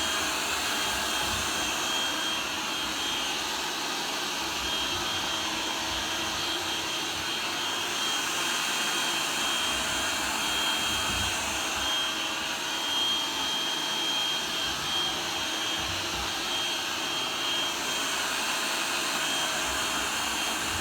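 AIRROBO P30 robot vacuum cleaner running steadily in spiral cleaning mode. It makes an even rush of fan noise with a thin high whine over it.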